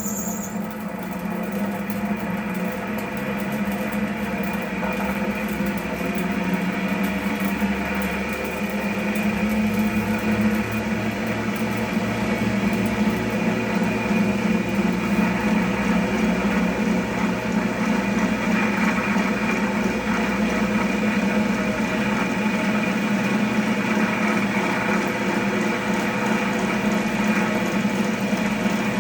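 Cast-head cotton candy machine running: its electric motor spins the heated sugar head with a steady hum and buzzy rattle while the sugar is spun into floss. It gets a little louder over the first several seconds.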